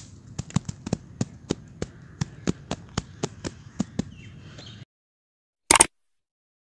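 Hands patting and slapping a bed of dry, crumbly sand-cement mix: a quick run of soft slaps, about four a second, that stops abruptly a little before five seconds in. Near the end comes one short, loud click.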